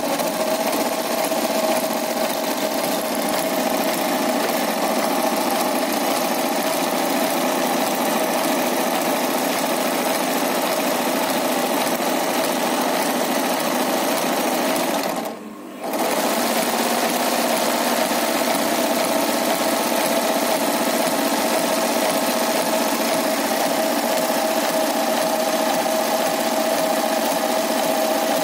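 Industrial single-needle sewing machine running steadily as it stitches rows of topstitching through black fabric. It stops for about half a second midway, then sews on.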